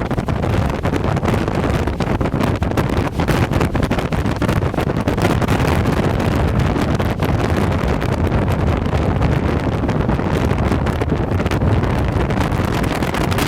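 Strong wind buffeting the microphone: a loud, continuous low rumble that flutters with the gusts.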